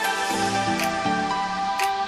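Background music: soft, sustained electronic notes that step from chord to chord, with a light tick about once a second.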